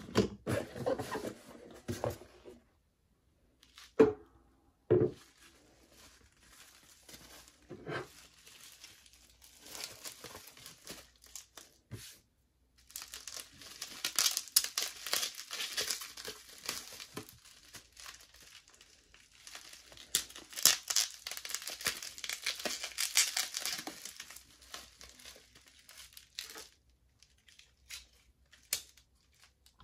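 Bubble wrap crinkling and rustling in bursts as a mug is wrapped in it by hand. Earlier, a cardboard box and packing supplies are handled, with two sharp knocks on the desk about four and five seconds in.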